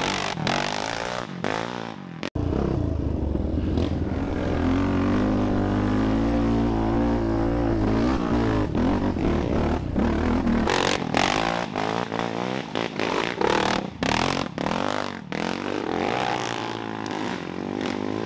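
Sport quad engines, among them a Yamaha Raptor 700's big single, revving and pulling along a dirt trail, the pitch rising and falling with the throttle. Clattering and scraping knocks mix in, many of them in the second half, and the sound breaks off suddenly about two seconds in.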